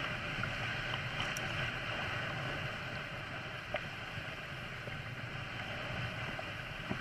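Water washing steadily along a kayak's hull as it glides across the lake, with a few faint ticks.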